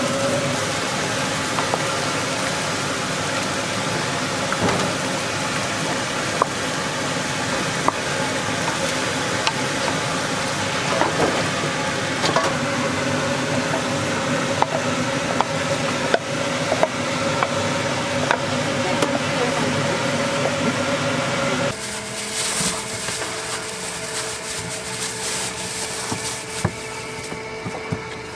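Chicken and cream filling sizzling in an aluminium pot on a gas stove while a wooden spoon stirs it, with occasional knocks of the spoon against the pot, over a steady kitchen hum. About twenty seconds in, the sound cuts to a quieter room with a lighter hum and some rustling.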